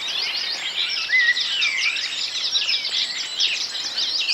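Several songbirds singing at once: a dense, unbroken run of quick high chirps and warbling trills.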